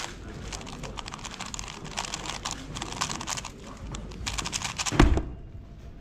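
Unreleased Diansheng 3x3 speedcube being turned very fast during a solve: a dense run of rapid plastic clicks. About five seconds in, a single loud thump as the cube is put down and the hands come down on the Stackmat timer to stop it.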